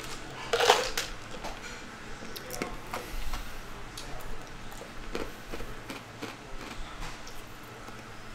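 A short sip from a cup about half a second in, followed by scattered light clicks and taps.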